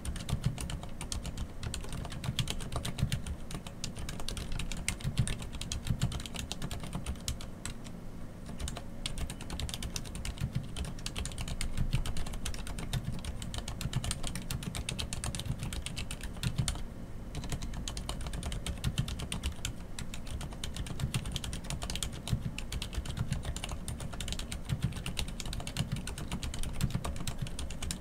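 Continuous fast typing on a Hansung GK998B full-size mechanical keyboard with Cherry MX Silent Red switches: a soft, muted patter of keystrokes with a brief pause about two-thirds of the way through.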